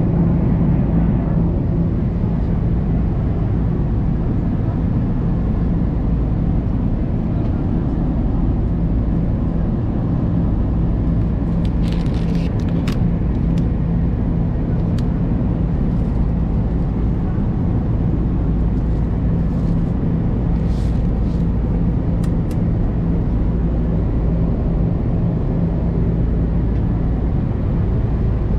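Steady low rumble of an Airbus A330-200's cabin in flight: engine and airflow noise with a low hum, and a few faint clicks in the middle.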